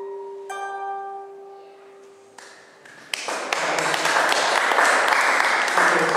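A harp's last plucked notes ring out and fade away, then an audience breaks into applause about three seconds in.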